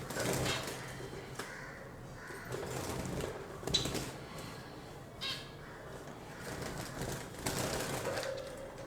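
Cockatiels in their cage giving short, harsh calls now and then.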